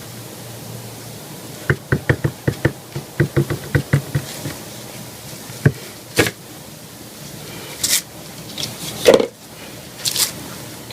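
Objects being moved and set down on a work surface: a quick run of light knocks and clicks, then a few separate, louder knocks.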